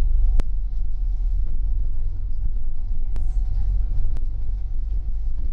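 Steady low rumble of a moving vehicle heard from inside, with a few sharp clicks.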